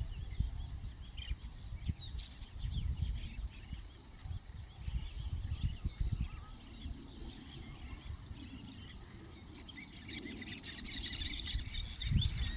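A steady, high-pitched insect trill in the evening, with low rumbling noise on the microphone. About ten seconds in, a burst of busy high chirping and chattering from weaver birds.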